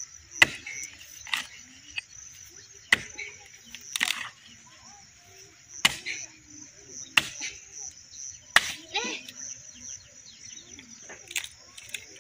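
An axe striking a hard log as it is split for firewood: about nine blows, spaced a second or two apart.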